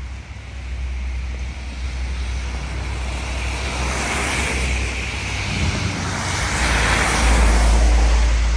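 Road traffic: passing cars, their tyre noise swelling about halfway through and again near the end, over a low rumble that is strongest toward the end.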